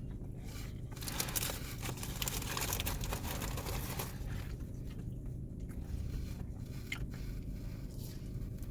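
Close-up crunching of someone biting into and chewing a crisp batter-coated buttermilk fried chicken burger, densest for a few seconds about a second in, then thinning to scattered crackles.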